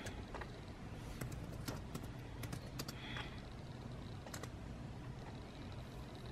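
Computer keyboard typing: a scattering of irregular keystroke clicks, with a quick run of them around the middle, over a faint room hum.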